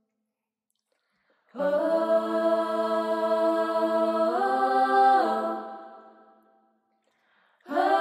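Young female voices singing a cappella in harmony. They come in about a second and a half in on a long held chord that shifts upward briefly, settles back and fades away. A new phrase begins just before the end.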